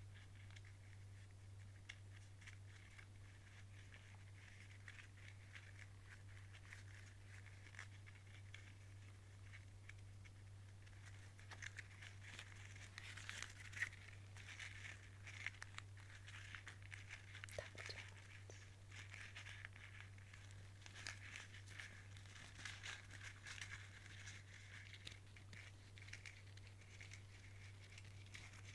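Faint crinkly rustling and soft clicks, busiest in the middle stretch, over a steady low hum.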